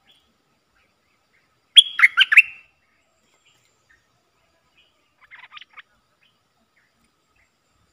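Bulbul (merbah lekir) calling from a decoy trap cage: a loud, quick run of four or five sharp chirping notes about two seconds in, then a fainter short run of notes about five and a half seconds in.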